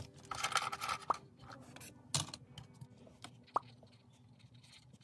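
Pens being handled: a few small clicks and taps of plastic pens, with a brief scratchy rustle in the first second.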